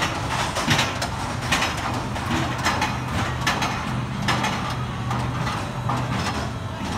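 Roller coaster train rolling slowly along its steel track, a steady rumble with a low hum and irregular clacks from the wheels and running gear.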